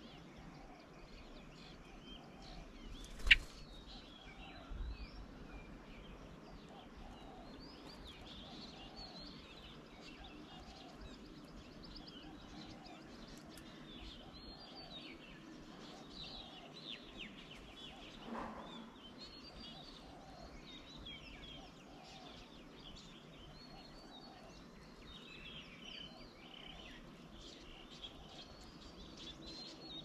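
Mixed outdoor bird chorus: many birds chirping and calling, with a lower call repeated about once a second underneath. A single sharp click about three seconds in is the loudest sound, followed by a soft thump.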